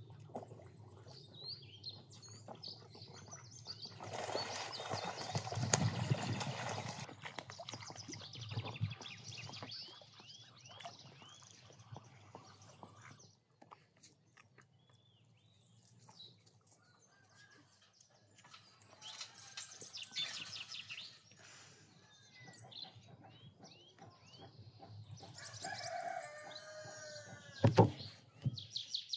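Small songbirds chirping and singing in the background throughout, with a loud rushing burst of noise about four to seven seconds in. Near the end a wooden cutting board is set down on a table with one sharp knock.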